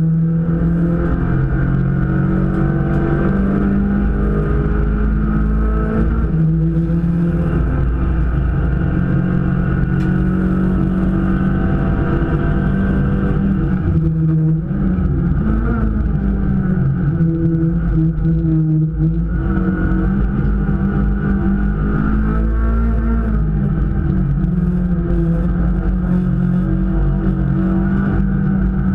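Super 1600 class race car's engine heard from inside the stripped cabin, running hard under racing load. The revs dip and rise again briefly a couple of times near the middle, and road noise runs underneath.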